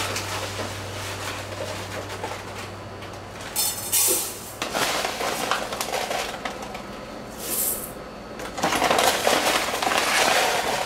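A plastic bag of dry jasmine rice crinkling while rice is scooped out with a small measuring cup and poured into a rice cooker's inner pot, in several irregular rustling, pattering bursts, the longest near the end.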